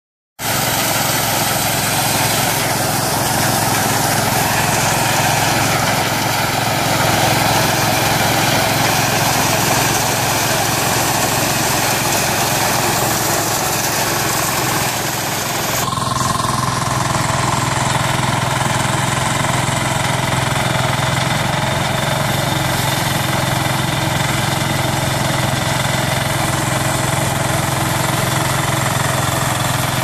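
Mini rubber-track combine harvester running while it cuts and threshes wheat: a loud, steady engine-driven machine noise. About halfway through the sound shifts slightly and a steady hum comes to the fore.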